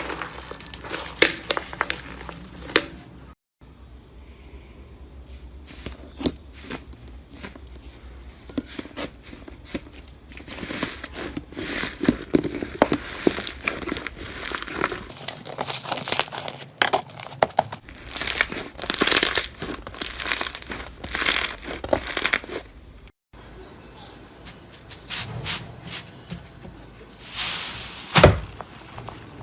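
Slime being squeezed, poked and stretched by hand, with dense crackling, popping clicks and crinkly tearing sounds. The sound breaks off for a moment twice.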